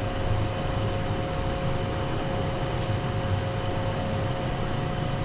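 A pot of herbal decoction coming to the boil on a stove burner: a steady hiss and low rumble, with a faint steady hum.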